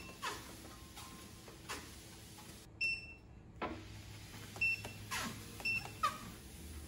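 A walking treadmill's handlebar control buttons beep with each press: short high beeps, a longer one about three seconds in, and two more a couple of seconds later. Soft knocks and thumps from the machine and feet on the belt come in between, and a low motor hum begins about four seconds in.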